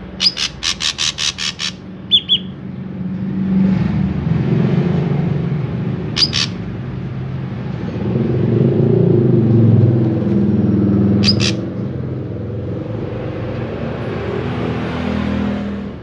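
Ashy drongo calling: a quick run of about eight sharp, harsh notes at the start, a short note just after, then single sharp calls about six and eleven seconds in. A steady low rumble runs underneath and swells in the middle.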